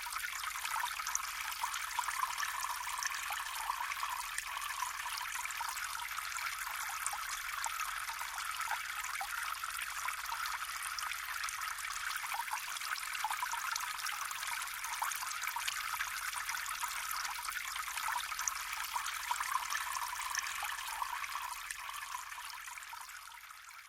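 Flowing water: a steady trickling, bubbling stream that fades out near the end.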